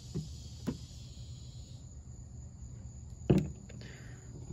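Steady low outdoor background with a few brief soft knocks as fossilized clam specimens are handled on a plastic table; the loudest knock comes about three seconds in.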